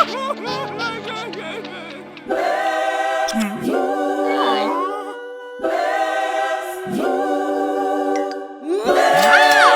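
A choir sings a cappella music in sustained chords. It enters softly, swells about two seconds in, and breaks off and comes back twice, with a high voice swooping up and down near the end.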